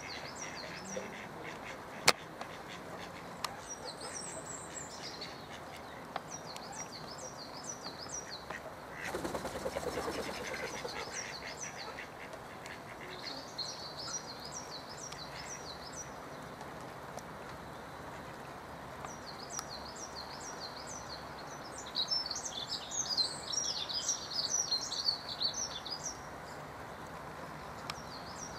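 Mallard ducks calling, with a lower stacked call about a third of the way in, over songbirds repeating quick high chirping phrases that grow busier and louder a little before the end. A single sharp click comes about two seconds in.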